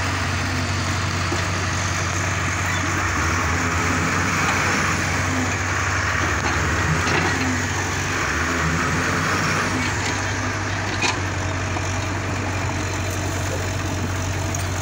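Diesel engine of a JCB tracked mini excavator running steadily while it works in the mud, with one sharp knock about eleven seconds in.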